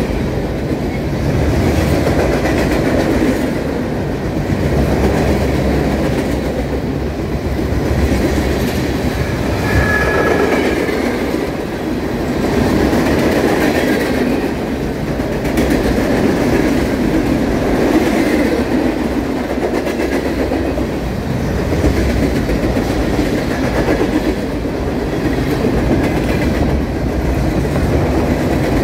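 Norfolk Southern mixed freight train's cars rolling past close by, steel wheels running over the rails in a continuous rumble that swells and eases every few seconds. A brief squeal comes about ten seconds in.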